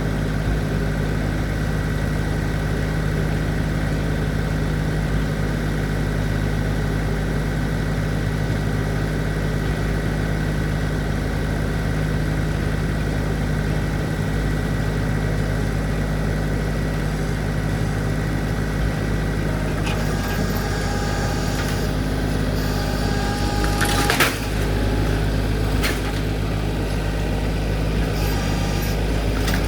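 Tractor engine running steadily. A little over twenty seconds in comes one loud crack of wood, with some brief higher squealing around it.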